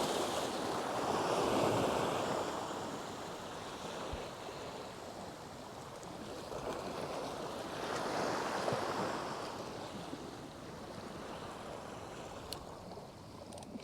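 Waves washing in, a steady rush of water that swells twice, about seven seconds apart.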